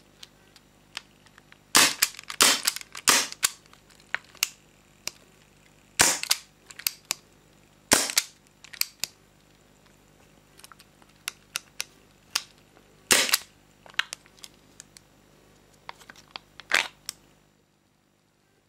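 Sharp metallic clicks and snaps from the action of a full-metal HFC C96 airsoft gas pistol, its hammer and parts worked by hand. There is a quick cluster about two to three seconds in, single loud snaps about six and eight seconds in, more around thirteen and seventeen seconds in, and fainter ticks in between.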